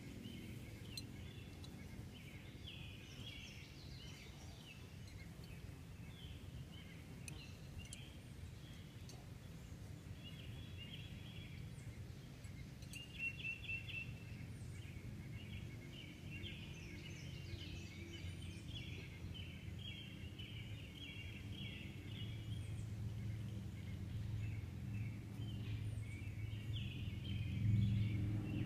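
Several wild birds chirping and trilling in short repeated phrases throughout, over a low steady rumble that grows louder toward the end.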